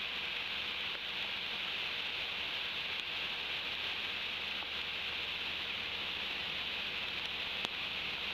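Steady rain falling, an even hiss, with a single sharp click near the end.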